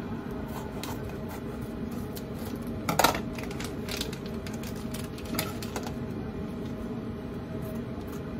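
Steady hum of an induction hob heating a frying pan of oil, with scattered clicks and crinkles from a spice sachet being snipped open with scissors and squeezed; the sharpest click comes about three seconds in.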